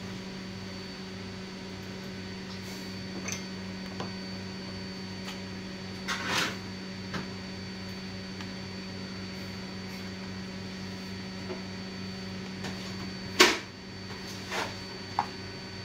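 Steady electrical hum of powered bench equipment, with a few small taps and clicks of tools on a circuit board. About 13 seconds in, a sharp click comes and the hum's main tone stops.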